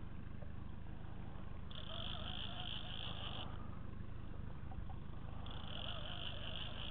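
Fishing reel whirring in two spells of about two seconds each, starting and stopping sharply, while a hooked walleye is played on the line. A steady low rumble runs underneath.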